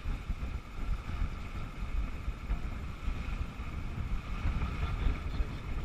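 Wind buffeting a GoPro's microphone aboard a sailboat under sail: an uneven, gusty low rumble over a steady hiss.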